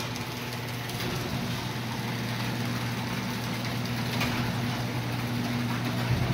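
Electric garage door opener running and raising a sectional garage door: a steady motor hum over the noise of the moving door.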